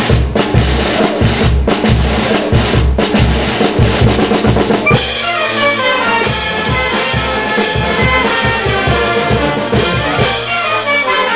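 A Peruvian brass band (banda) of clarinets, saxophones, trumpets, tubas, bass drum and snare playing. The bass drum beats steadily, about three strokes a second, then about five seconds in the winds and brass take up a melody with quick descending runs over the band.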